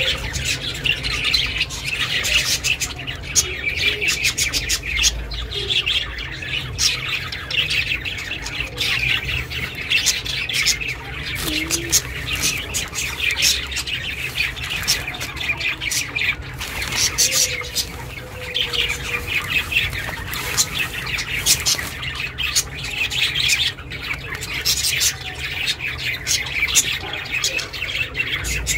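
Budgies (budgerigars) chirping and chattering continuously, many short rapid chirps overlapping, with a faint low hum underneath.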